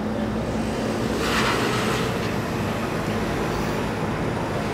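Car ferry's engines running with a steady low rumble and hum as it gets under way from the quay. A brief rushing hiss comes in from about one to two and a half seconds in.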